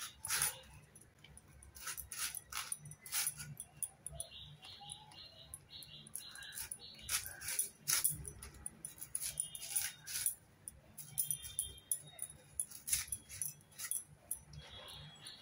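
A giant taro (maan kochu) root being peeled on a boti, the curved fixed blade shaving off its skin in a run of short, sharp cutting strokes. Bangles jingle now and then as the hands work.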